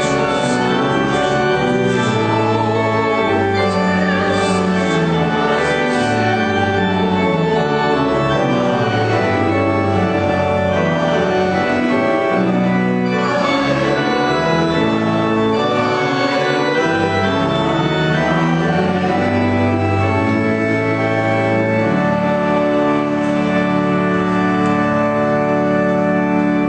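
Church organ playing a hymn in slow, sustained chords that change every second or two.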